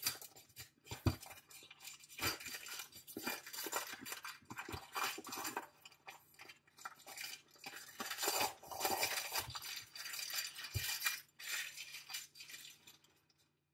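Cellophane shrink-wrap being torn and peeled off a boxed card deck: dense, irregular crinkling and crackling that stops about a second before the end.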